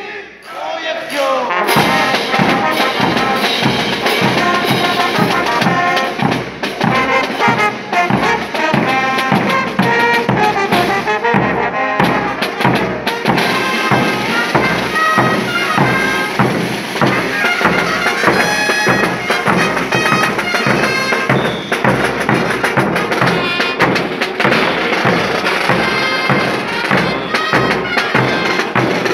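Morenada brass band playing: trumpets, euphoniums and tubas over bass drums and crash cymbals keeping a steady beat. The music dips briefly near the start, then carries on at full strength.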